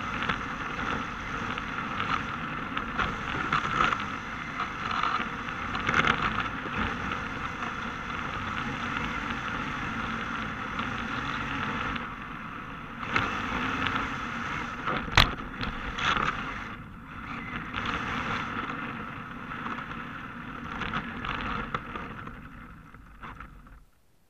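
Onboard sound of an electric 1/10 RC drift car (Yokomo DRB chassis) driving laps: motor, drivetrain and hard tyres sliding on asphalt, rising and falling with the throttle. There is one sharp knock about fifteen seconds in, and the sound fades out just before the end.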